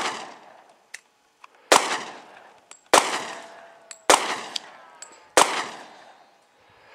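Four gunshots from a firearm fired at a paper target, about a second apart, each trailing off in an echo. Faint ticks fall between the shots.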